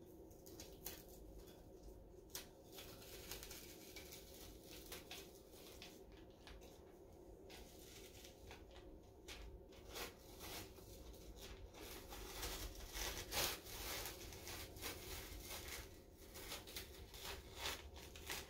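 Repositionable double-sided adhesive sheet (glitter peel vinyl) being peeled off a glitter-coated tumbler: faint, irregular crackling and ticking as the adhesive lets go, a little busier past the middle.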